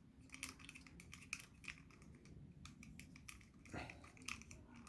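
Faint, irregular scratchy clicks of a damp cotton pad being rubbed over the edges of a plastic toy, with small knocks from handling the plastic.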